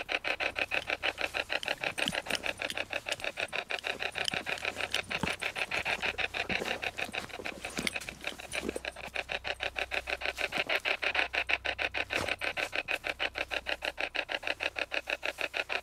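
Hack Shack spirit box, a hacked radio sweeping continuously through stations: a rapid, even chop of radio static and snippets several times a second, with an occasional louder click.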